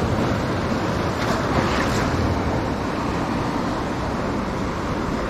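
Ocean surf washing and churning around rocks: a steady rush of moving water.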